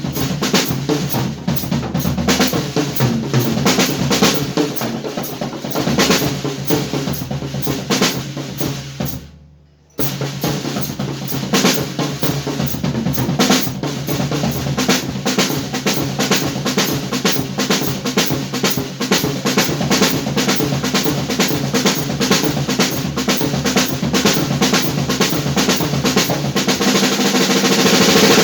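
Drum kit played hard, with a dense, driving beat of snare, bass drum and cymbals. About nine seconds in, the sound dies away for about a second and comes back abruptly.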